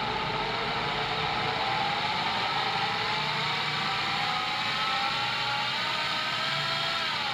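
Exway X1 Pro electric skateboard hub motor spinning with no load, its whine rising slowly in pitch as it speeds up and then falling sharply near the end as it slows. The bearing has been cleaned with WD-40: it runs not perfectly quietly, but much better than before.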